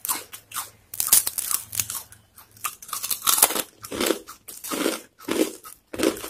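Someone biting and chewing crisp, deep-fried achu murukku (rose cookies): a run of irregular, sharp crunches, several a second at times.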